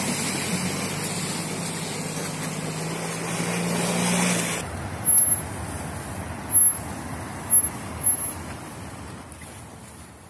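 A Suzuki Grand Vitara's 2.4-litre four-cylinder engine runs under load, its pitch rising slightly as the SUV climbs. The sound cuts off abruptly a little under five seconds in. What follows is a quieter, noisier stretch with four short, sharp, loud sounds, fading out near the end.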